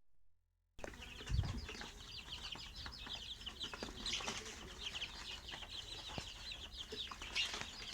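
A flock of chickens calling: a dense chorus of many overlapping high-pitched chirps that starts abruptly about a second in, with a low thump shortly after.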